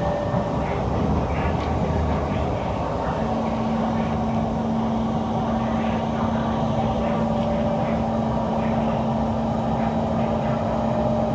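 Kawasaki C151 metro train running at speed, heard from inside the carriage: a steady rumble of wheels on rail with a steady low hum that drops out near the start and returns about three seconds in.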